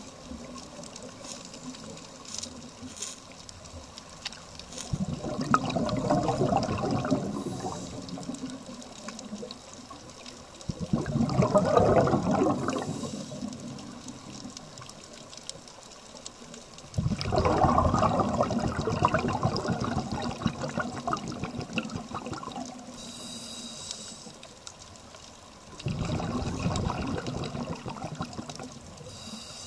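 Scuba diver's regulator exhaust bubbles, a diver breathing out underwater: four long bubbling exhalations roughly six seconds apart, with quieter stretches between the breaths.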